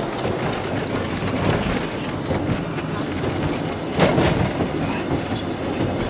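Car tyres knocking over the joints of a concrete road, heard inside the moving car: a steady road rumble with a repeated dyh-dyh-duh-duh beat. The heaviest knock comes about four seconds in.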